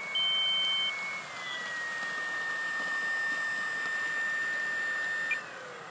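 FMS 1400mm P-40B electric RC model running on the ground with its onboard engine sound system on: a steady high whine over a noisy hiss. The whine drops in pitch about a second and a half in and cuts off shortly before the end. A short high beep sounds near the start.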